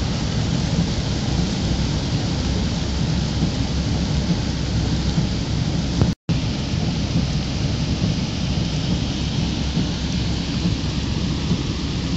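Torrential downpour: heavy rain falling steadily, with a deep rumble underneath. The sound cuts out briefly about halfway through.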